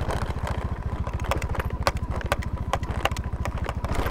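Motor scooter engine idling with a steady, rapid putter, with sharp clicks and taps scattered over it.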